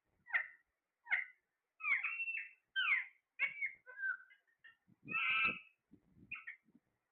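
Parrot calling: a run of about ten short squawks and chirps, some sliding in pitch, with one longer, fuller call a little after the middle.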